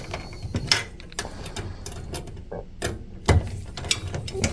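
Irregular clicks and knocks of small hardware and hand tools being worked while a part is fitted on a pinball machine, with one louder knock about three seconds in.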